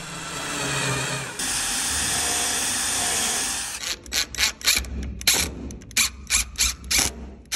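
RIDGID cordless drill/driver running steadily for about three and a half seconds as it drives a screw into a 2x4. It then gives a string of short, sharp bursts, about three a second.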